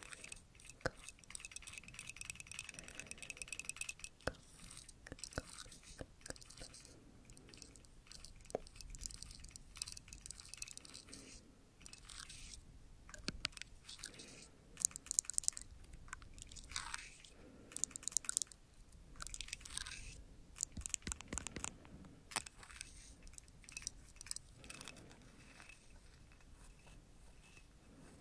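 Close-miked ASMR scratching and crinkly rustling, in uneven flurries of sharp crackles and clicks, busiest in the middle and thinning out near the end.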